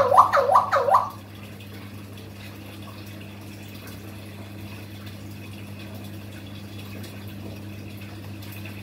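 Four or five quick high calls, each rising and falling, in the first second, then a steady low hum with a faint hiss.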